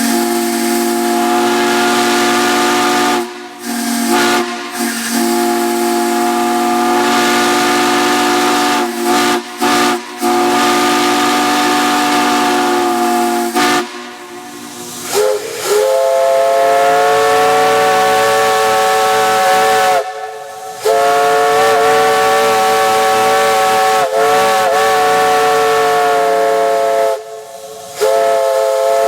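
Steam chime whistles blown in long blasts over a steam hiss. A lower-pitched chime sounds for about fourteen seconds, cut briefly a few times. After a short pause a higher-pitched chime slides up into its note and is held, again with a few brief breaks.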